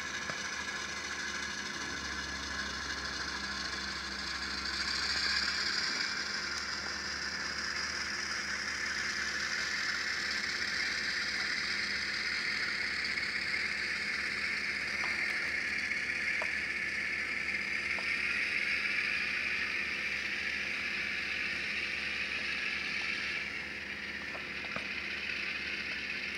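Diesel locomotive engine sound played by a LokSound Select Micro sound decoder through the small speaker in an N-scale EMD E8B model, running steadily as the locomotive moves at a low speed step. It swells briefly about five seconds in and drops somewhat near the end, with a few faint clicks.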